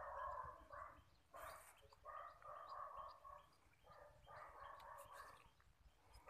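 Near silence with faint animal calls, several short ones in a row.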